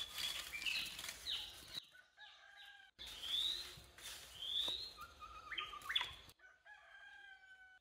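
A rooster crowing in long held calls, with small birds chirping in short rising and falling notes.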